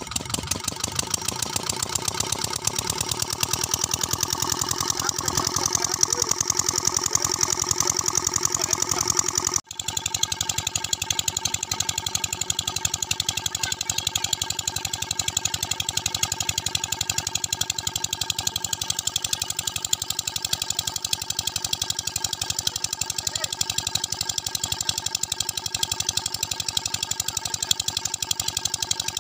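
Small diesel pump-set engine running steadily with a rapid, even thudding beat as it drives a water pump. There is a brief dropout about ten seconds in.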